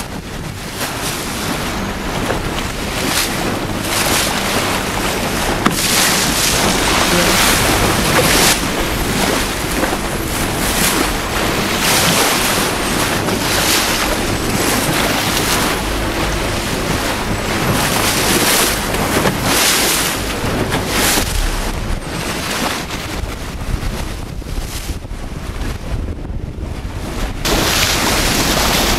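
Wind buffeting the microphone over the rush of sea water past a moving boat, with a low steady engine hum underneath; the wind comes in repeated gusts.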